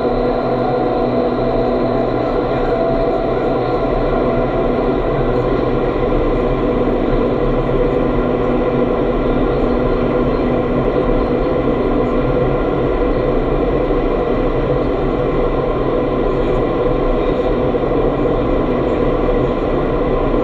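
Indoor vertical wind tunnel running: a loud, steady rush of air through the flight chamber, with a constant hum of several tones from the fans underneath.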